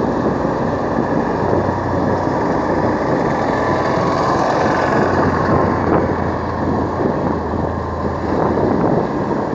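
Motor two-wheeler running steadily at road speed, its engine drone mixed with road and wind noise.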